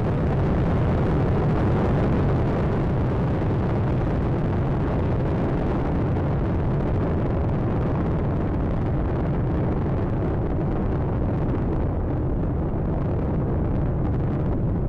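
Space Shuttle Atlantis's solid rocket boosters and three main engines firing during ascent, a steady deep rocket roar with a rumbling low end; the higher hiss thins a little near the end.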